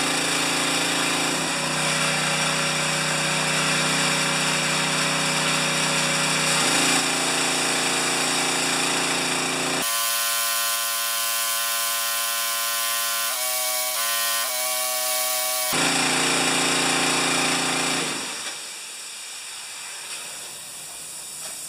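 A BE pressure washer's small gasoline engine running steadily, just started without choke after a tune-up. Its pitch wavers briefly a little past the middle, and near the end the engine sound gives way to a quieter, even hiss.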